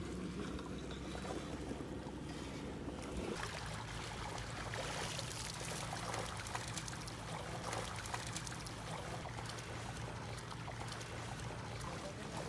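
Shallow river water trickling and splashing as a freshly netted catfish is handled in it, over a steady outdoor noise.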